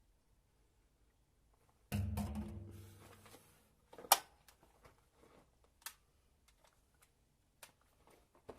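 Handling noises of a chainsaw being got ready to start: a dull knock with a low ring that fades about two seconds in, then a sharp click about four seconds in and a few fainter clicks.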